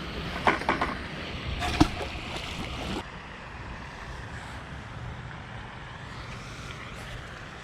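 Wind buffeting the microphone, with a few sharp clicks and a knock in the first two seconds.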